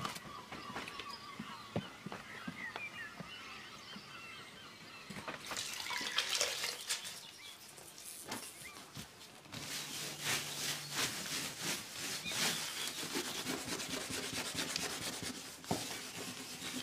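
Birds singing for the first few seconds. Then, after a cut, repeated scratchy scrubbing and rustling as a floor is scrubbed by hand with a cloth.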